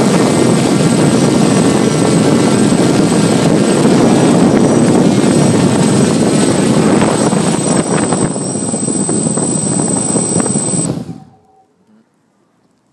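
Hexacopter's six electric motors and propellers running, heard up close from on board, with a steady high whine over the rotor noise as it comes down onto grass. The noise cuts off suddenly near the end as the motors stop after landing.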